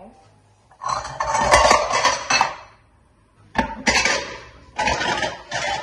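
Pots and pans clattering and scraping in bursts as cookware is moved about and a pan is pulled out. There is one long rattle first, then three shorter bursts of clanking.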